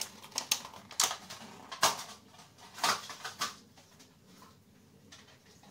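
A handful of sharp clicks and clatters of small hard objects being handled, irregularly about half a second to a second apart, stopping after about three and a half seconds.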